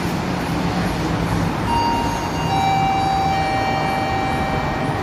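Steady, fairly loud rumble of traffic and railway-station background noise. From about two seconds in, several high steady tones at different pitches join one after another and hold for a few seconds.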